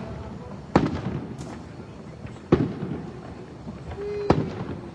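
Aerial fireworks bursting: three sharp bangs, roughly one and three-quarter seconds apart, each trailing off in a rolling echo, with fainter pops between.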